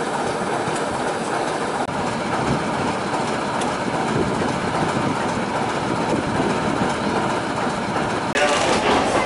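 Alco diesel switcher locomotive idling at a standstill, a steady, loud engine rumble. Near the end the sound cuts abruptly to a different scene.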